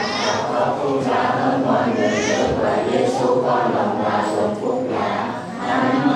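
A group of voices reciting a Catholic prayer in unison in Vietnamese, in a steady chanted sing-song.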